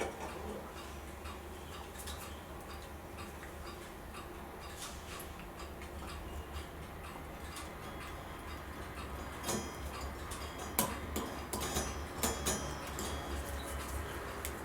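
Small, irregular metallic clicks and taps of clock parts and tools being handled as a gear and its taper pin are fitted onto an arbor. They are sparse at first and come more often in the second half, over a low steady hum.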